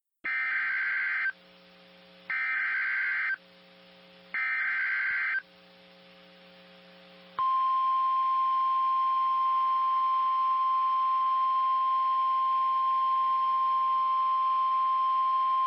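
Emergency Alert System SAME data header: three bursts of warbling digital tones, each about a second long and about a second apart. About seven seconds in, a steady, high single-pitched alert tone begins: the NOAA Weather Radio warning alarm that opens a severe thunderstorm warning broadcast.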